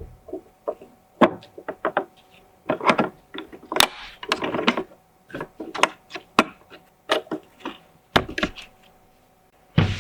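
Irregular clicks, taps and rattles of computer parts being handled and fitted during a PC build, some in quick clusters.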